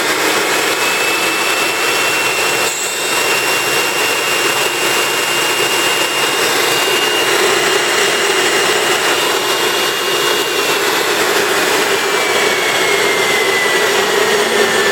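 Dumore Series 57 tool post grinder, 1 horsepower 115 volt motor, running free with a loud high whine over a steady hum. The whine holds one pitch, then slowly drops in pitch from about ten seconds in; a brief knock about three seconds in.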